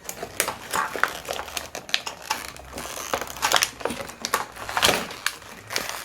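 Plastic toy packaging crinkling, with irregular clicks and taps of small plastic toy pieces being handled and unpacked.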